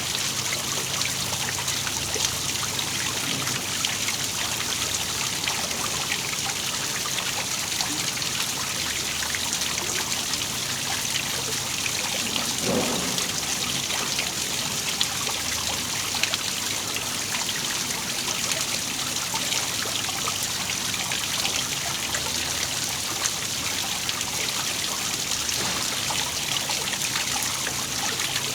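Waterfall: water falling and splashing steadily, a continuous trickling rush with small splashes.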